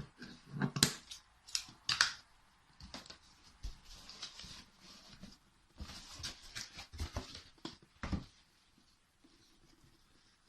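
Router packaging being handled and unpacked: a run of sharp clicks and taps, then cardboard and plastic rustling, with a knock about eight seconds in before it quietens.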